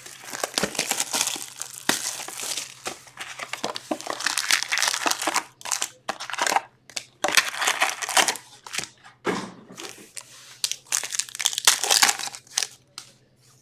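Foil wrappers of hockey-card packs crinkling and tearing in irregular bursts as packs are opened by hand.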